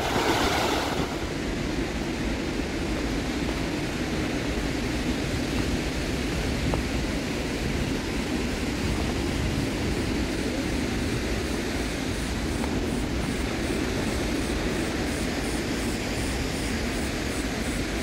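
Loud, steady rush of a 144-metre waterfall and the rocky river below it.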